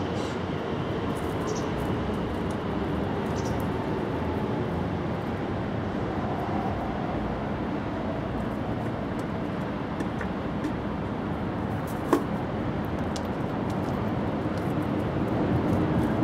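Steady outdoor background hum with a faint steady drone in it, and one sharp click about twelve seconds in.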